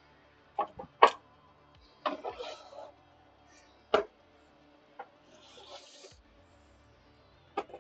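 Old wooden sewing-cabinet drawers being pulled out and handled: a series of separate wooden knocks and clacks, a short rattle of loose contents a little after two seconds, and a brief scraping slide around six seconds.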